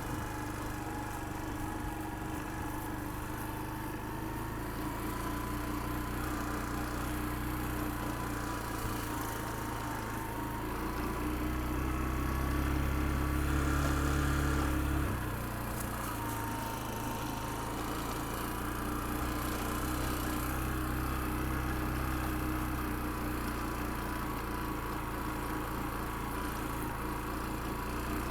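A motor or engine running steadily, with a low rumble that grows louder about eleven seconds in and drops away suddenly about fifteen seconds in.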